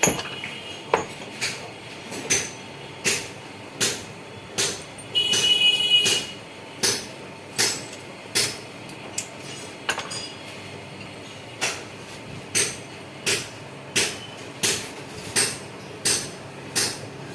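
Hammer striking metal in steady, evenly spaced blows, about one every three quarters of a second, while a front shock absorber is being worked on. A brief high-pitched metallic squeal comes about five seconds in.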